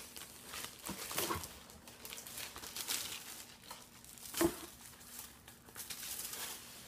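Clear plastic bag and tissue paper crinkling and rustling as a wrapped gift is pulled out and unwrapped by hand, with one louder, sharper crackle about four and a half seconds in.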